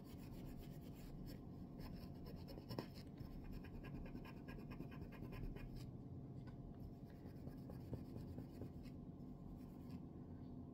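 Faint, rapid rubbing strokes of a straight razor blade being hand-polished to buff out scratches, with light pressure. The strokes are dense for the first half and grow sparser after about six seconds.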